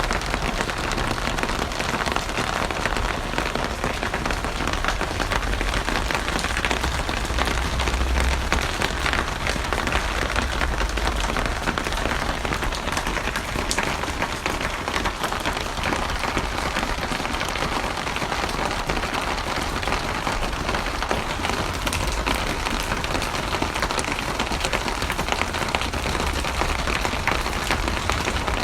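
Steady rain falling, dense pattering of drops with a low rumble underneath.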